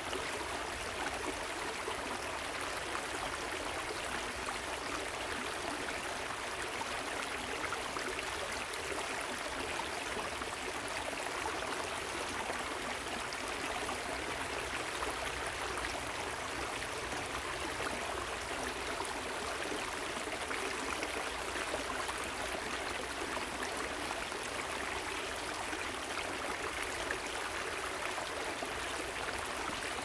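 Waterfall and river water rushing steadily, an even splashing hiss with no breaks.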